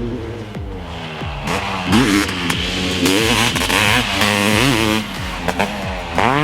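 A 1995 Honda CR500's single-cylinder two-stroke engine being ridden hard, its revs rising and falling over and over as the throttle is worked, with a steep climb in revs near the end.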